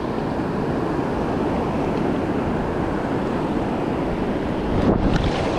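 Sea surf washing and breaking, with wind buffeting the microphone: a steady rushing noise with a deep rumble underneath.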